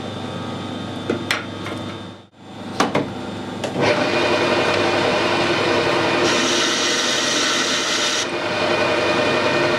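Metal lathe spindle running with a carbide insert tool chamfering the end edge of a metal bar held in a collet chuck. The cutting noise with a steady ring sets in about four seconds in over the running lathe and grows brighter and louder for a couple of seconds before easing.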